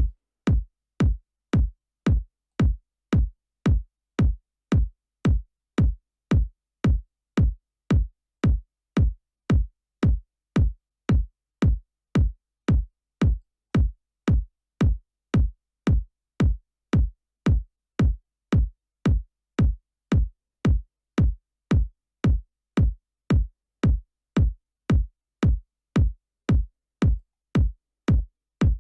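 A soloed house kick drum looping in a steady four-on-the-floor pattern, about three hits every two seconds, each a deep thud with a short click on top. It is run through Cakewalk Sonar's stock Sonitus compressor, set to tame the kick's peaks so that they stop clipping the master and leave a rounded top end.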